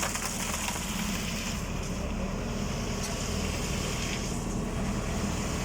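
Tractor diesel engine running steadily under load, driving a transit concrete mixer drum through its PTO.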